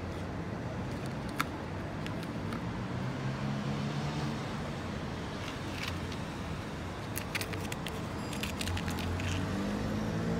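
Steady low background rumble, with scattered light clicks and taps of small plastic candy containers being handled; the clicks come thickest about seven to nine seconds in.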